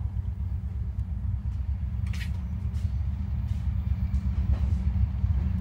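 Steady low diesel rumble of freight locomotives out of sight, holding at an even level.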